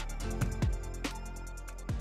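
Background music with a steady beat: quick regular ticks over deep drum thumps and held tones.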